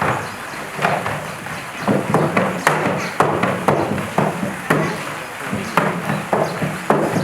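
A large milk-bottle-shaped toy being knocked and banged about by a polar bear: a string of sharp, irregular knocks and thuds, roughly one or two a second, over a background of voices.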